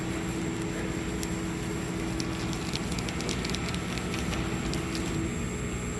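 Non-metal laser cutting machine running: a steady hum with a constant tone and a faint high whine, and a run of light ticks and crackles from about two to five seconds in.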